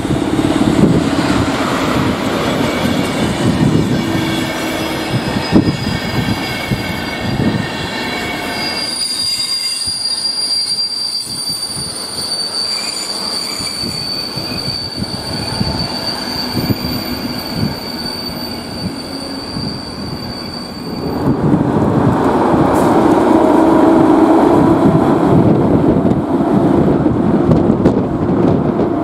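Electric-hauled passenger train passing at speed: continuous rolling noise of wheels on rail, with a high, thin wheel squeal that holds through the middle stretch. About two-thirds of the way in, a louder passing of another electric locomotive and coaches takes over.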